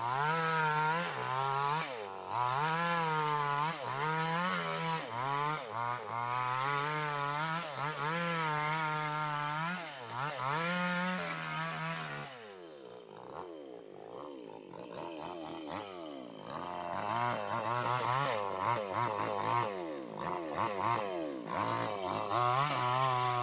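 Two-stroke chainsaw ripping lengthwise through a squared pink bayur timber, its engine pitch dipping and recovering again and again as the chain loads up in the wood. About twelve seconds in it drops to lower, uneven revs for a few seconds, then picks up and cuts again.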